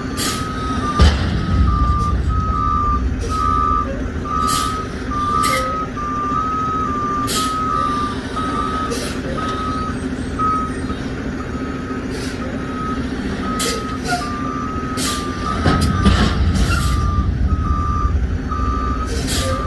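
Roll-off truck's backup alarm beeping steadily, about two beeps a second, over its diesel engine, which revs up about a second in and again near the end as the truck backs and loads a compactor container. Short hisses or clanks come through now and then.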